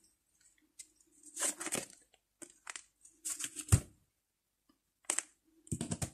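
A deck of tarot cards being shuffled and handled by hand: short papery bursts of cards riffling and sliding against each other, with one sharper knock near the middle as cards or the deck hit the table.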